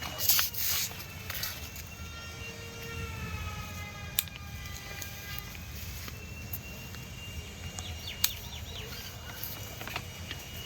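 A distant siren wail, one long pitched tone that slowly falls over about three seconds, over steady outdoor background noise. A few short rustles and clicks come near the start, in the middle and later on.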